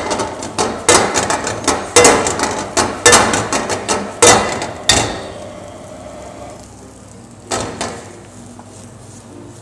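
Round steel wok knocking on a gas burner's grate as rice is tossed with biryani masala in it, about one knock a second with a rustling wash between. The tossing stops about five seconds in, and there is one more single knock near the end.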